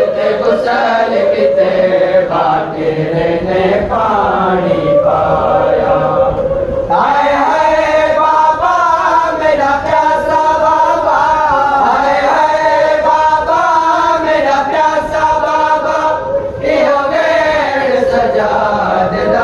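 A group of men chanting a noha, a Shia mourning lament for Muharram, loudly and in unison. About seven seconds in the melody steps up to a higher line, with a brief break near the end.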